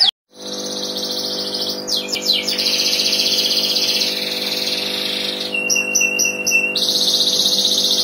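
Domestic canary singing a fast, continuous, high-pitched trilled song. A few quick downward-sweeping notes come about two seconds in, and a run of rapid repeated notes over a held whistle comes a little past halfway. A steady low drone runs underneath.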